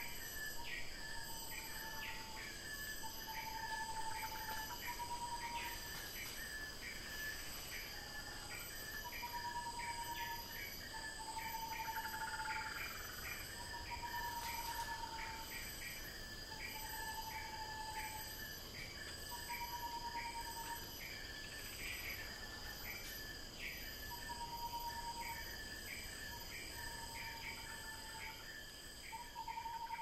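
Insects chirring steadily at a high pitch, with quick ticking calls a few times a second. Short low whistled notes come every second or two.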